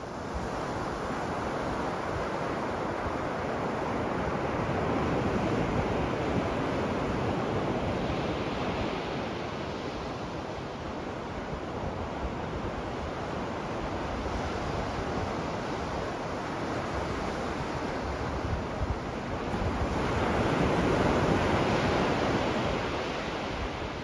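Atlantic surf breaking and washing up a sandy beach: a steady rush of waves that swells louder twice, as bigger waves come in.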